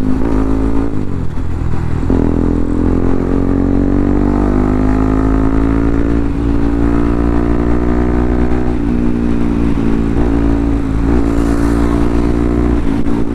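Bajaj Pulsar NS200's single-cylinder engine under hard acceleration, heard from on the bike, its pitch climbing slowly and dipping briefly several times as it shifts up through the gears.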